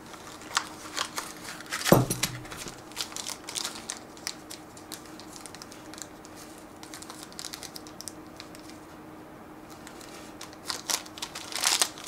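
Small cardboard box and plastic bag being handled as a camera quick-release plate is unpacked: crinkling plastic, rustles and small clicks, with a louder knock about two seconds in. Handling quietens in the middle, then the bag crinkles again near the end.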